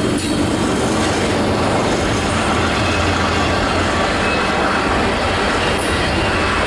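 Canadian Pacific freight train rolling past, a loud, steady rumble and rattle of its cars and wheels on the rails.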